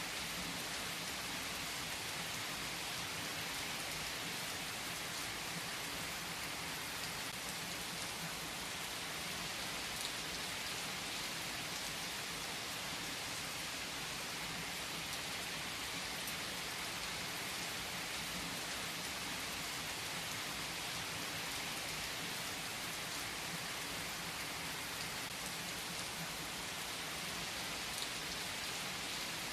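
Steady rain falling, an even hiss with the odd single drop ticking more sharply now and then.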